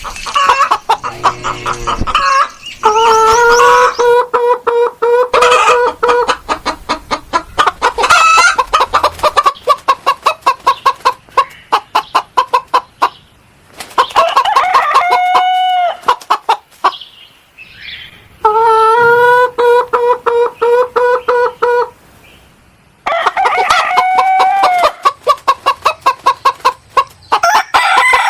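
Chickens clucking in fast runs, broken several times by long, held rooster crows.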